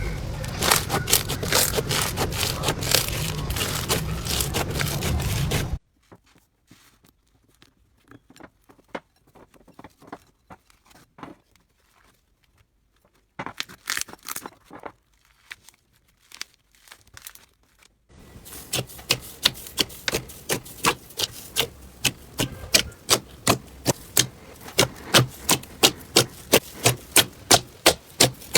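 Slime being squeezed and pressed, crackling densely for about six seconds, then only scattered soft clicks and pops with a brief crackle in the middle, then a run of sharp crunchy pops about two a second.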